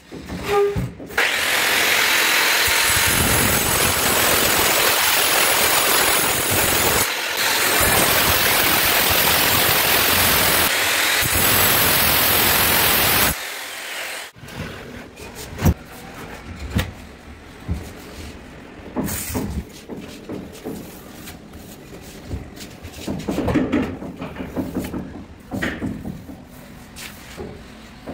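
Angle grinder running against the edge of a black granite countertop, a loud steady whine with two brief dips, which cuts off sharply about thirteen seconds in. After that come quieter scattered knocks and scraping as the stone is handled.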